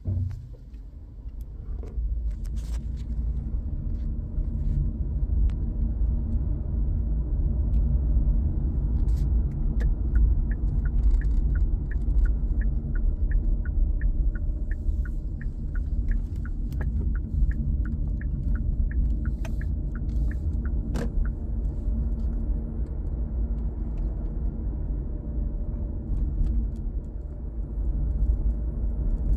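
Hyundai Ioniq Electric (2019, 28 kWh) on the move: a steady low rumble with a faint steady hum over it. This is the weird noise the owner thinks comes from the electric motor. A run of light regular ticks, about two a second, comes in through the middle and then stops.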